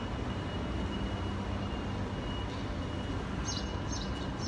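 Outdoor street ambience: a steady low rumble of traffic and wind on a phone microphone, with a faint steady high tone and a few short high chirps near the end.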